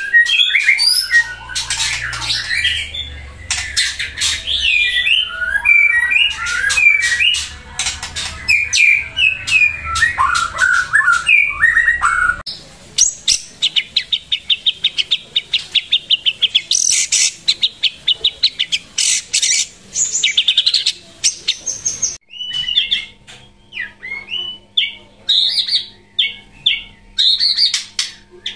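White-rumped shama (Pasaman murai batu) in loud full song: varied whistled phrases sliding up and down, mixed with sharp clicks and fast rolling trills of rapidly repeated notes.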